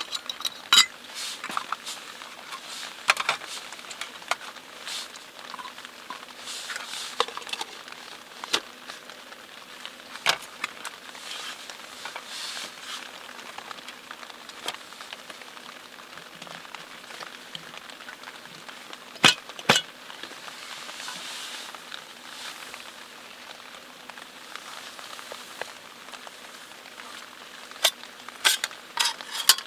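Steady rain pattering, with scattered sharp clicks and knocks from camp gear being handled. Near the end comes a quick run of metal clatters as an aluminium slat folding table is folded up.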